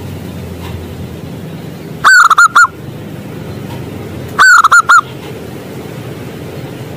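Zebra dove (perkutut) cooing: two loud phrases of about four quick, clipped notes each, the second about two and a half seconds after the first, over a steady low background noise.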